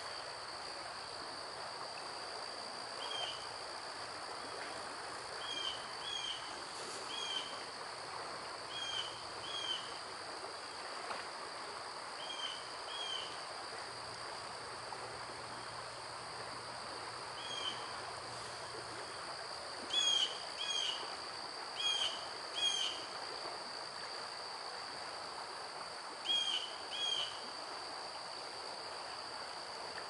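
A steady high-pitched insect drone runs throughout. Over it a bird gives short chirps, mostly in pairs, a few seconds apart, and they are loudest about two-thirds of the way through.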